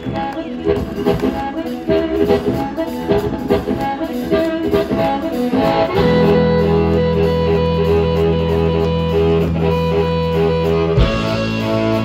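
Live blues band: amplified harmonica soloing over electric guitar, bass, drums and organ. The first half is choppy, rhythmic playing; about six seconds in the band settles into long held low chords, moving to a new chord about a second before the end.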